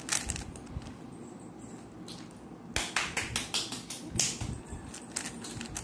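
Plastic 3x3 Rubik's cube being turned by hand: quick clicks of the layers snapping round, a short run right at the start and a faster flurry of turns about three seconds in.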